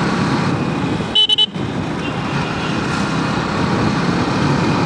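Motorcycle engine running at a steady road speed with wind rush, heard from the rider's seat. About a second in, a horn gives three quick beeps.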